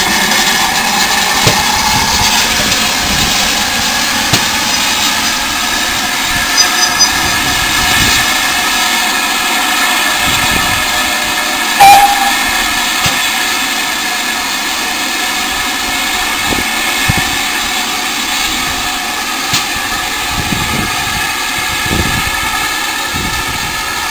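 Steam locomotive running slowly past at close range: a steady hiss of steam with low, irregular buffeting. A brief, sharp, loud sound stands out about halfway through.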